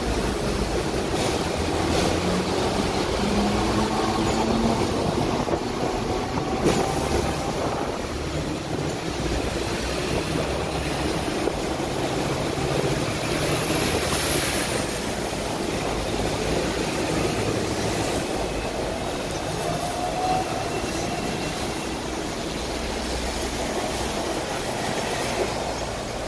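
Hong Kong double-decker tram running along its tracks, heard from on board: a steady rumble of wheels on rails, with a faint whine rising in pitch in the first few seconds and a brief high squeal about halfway through.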